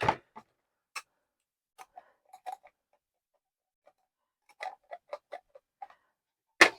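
Hard plastic parts of a cordless car vacuum clicking and knocking together as its attachments and filter are tried for fit. Scattered light clicks, a quicker run of them past the middle, and a louder knock near the end.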